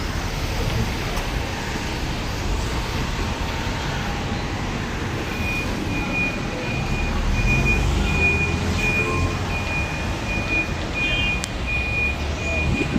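Vehicle and road traffic noise, a steady low rumble. From about five seconds in, a high electronic beep repeats evenly about twice a second, the pattern of a reversing alarm.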